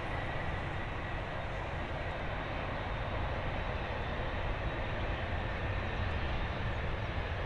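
Boeing 787-9 jet engines at taxi power as the airliner rolls along the taxiway: a steady rushing hum with a faint steady high whine.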